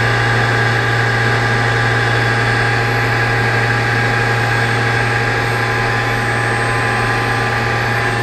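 Loud, steady hum of powered-up machine-shop equipment: a strong low drone with several steady higher tones over it, unchanging throughout.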